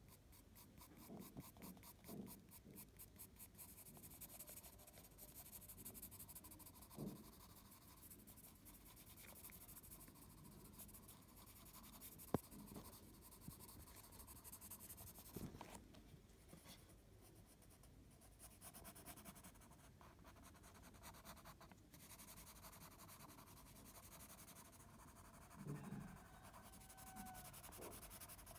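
Faint scratching of a graphite pencil on paper in short, repeated shading strokes, with one sharp tick about twelve seconds in.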